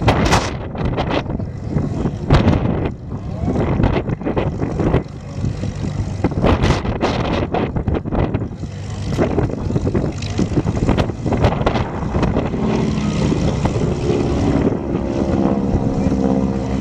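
Wind buffeting the microphone in gusts. About twelve seconds in, the steady, pitched drone of a Pitts Special aerobatic biplane's engine and propeller comes in and holds.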